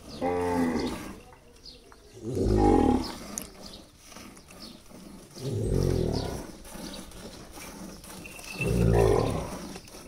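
Cattle mooing four times, each moo about a second long, with pauses of a second or two between calls.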